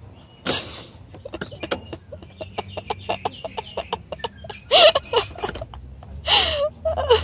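A person laughing helplessly: a fast run of short breathless gasps, then loud high squealing laugh bursts that fall in pitch, three times near the end.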